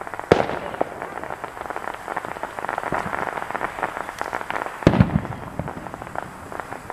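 Fireworks going off: a continuous crackle of many small pops, one sharp bang just after the start, and a cluster of louder, deeper bangs about five seconds in.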